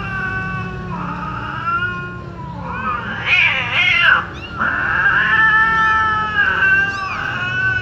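Young kittens crying in high, drawn-out mews, several voices overlapping almost without pause, with a louder, harsher squall about three seconds in that breaks off sharply just after four seconds.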